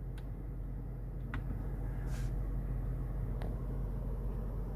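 BMW 4.4-litre V8 of a 2003 Range Rover Vogue idling steadily, heard as a low hum inside the cabin, with a couple of faint clicks.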